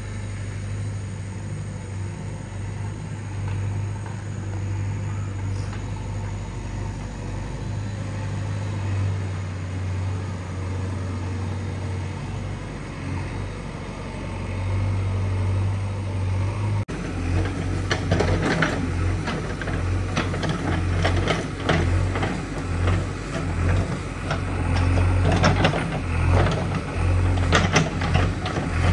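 JCB 3DX backhoe loader's diesel engine running steadily. About two-thirds of the way in the sound becomes closer and louder: the engine works harder, with repeated clanks and knocks as the backhoe digs into soil.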